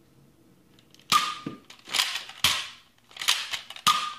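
Nerf Accustrike Quadrant spring-powered dart blaster being worked and fired: a series of about five sharp plastic clacks and snaps, starting about a second in, as the slide is primed and the trigger released.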